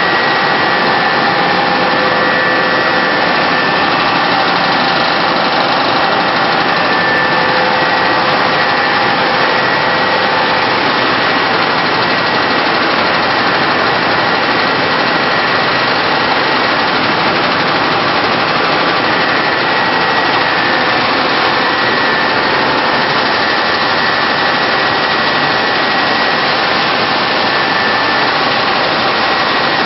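Millet seed cleaning line with its gravity separator running: a loud, steady whirring of fans and motors, with a few faint steady whines held through it.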